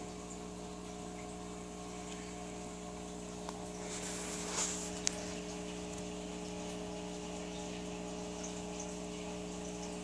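Steady machine hum, typical of a small motor or pump. About four and a half seconds in there is a brief hiss, then a single sharp click.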